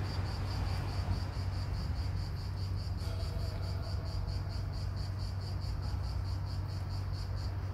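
Insects chirping in an even pulse, about five chirps a second, over a low steady hum.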